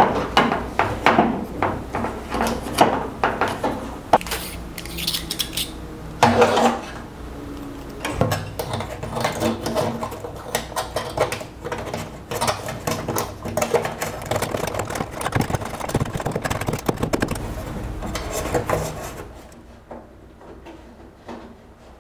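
Irregular metallic clicks, scrapes and knocks of a screwdriver and screws as a machined aluminum fresh-air vent is screwed onto an aluminum instrument panel. The clatter dies down near the end.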